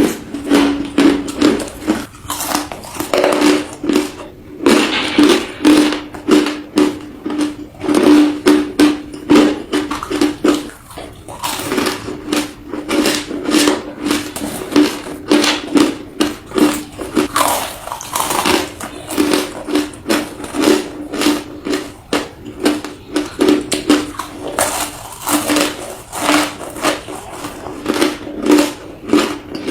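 Crushed ice being bitten and chewed close to the microphone: rapid, irregular crunches one after another. A steady low hum runs underneath.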